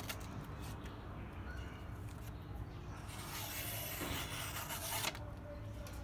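A sheet of paper being sliced by a sharp, freshly honed small folding knife: a dry rasping rustle in slow cutting strokes, with the longest stroke about three to five seconds in. The clean slicing is a test of the knife's sharpness.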